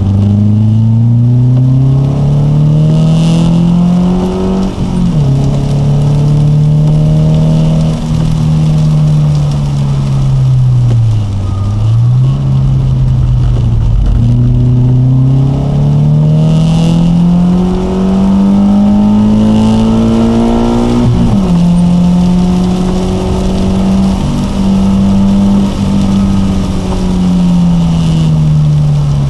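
BMW 323ti's 2.5-litre straight-six engine under hard acceleration, heard inside the cabin. The engine note climbs, drops sharply at upshifts about five seconds in and again about twenty-one seconds in, dips briefly in between, and falls away near the end as the car slows.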